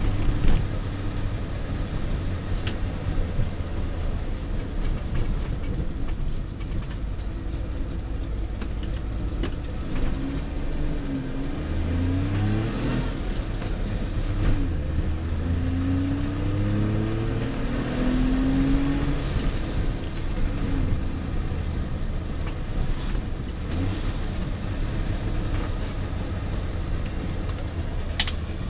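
A 1966 DKW-Vemag Belcar's three-cylinder two-stroke engine running under way, heard from inside the cabin. Around the middle its pitch rises several times as the car picks up speed, and a sharp click comes near the end.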